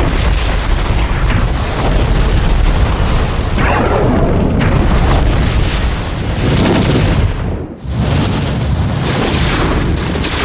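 Science-fiction weapon sound effects: a run of sudden blasts and booms, about one a second, over a constant deep rumble, with a falling sweep about four seconds in.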